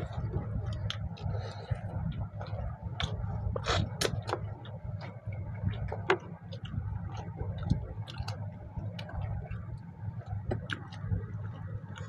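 Close-up eating sounds of two people eating rice and mutton curry by hand: chewing and lip-smacking, with fingers working food on steel plates, heard as many short irregular clicks over a low steady hum.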